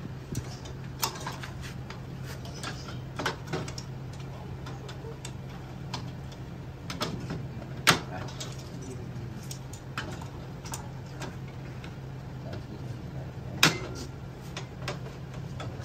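Scattered clicks and knocks of hand tools and metal parts being handled during e-bike brake work, with two sharper clacks, one about halfway through and one near the end, over a steady low hum.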